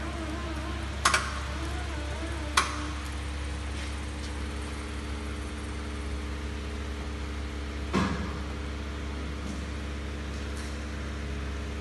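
Heidelberg SM 74 offset printing press running with a steady mechanical hum. Three sharp clicks stand out over it, about one, two and a half and eight seconds in.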